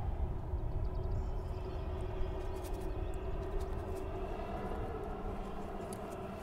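Engine drone: a low rumble with a steady hum over it, easing off slowly, with a few faint ticks on top.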